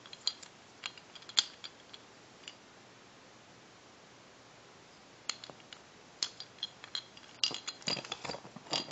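Light clicks and taps of a wooden toy train engine with plastic wheels being turned over in the hands: a few in the first couple of seconds, then a quicker run of clicks over the last few seconds as it is handled and set down.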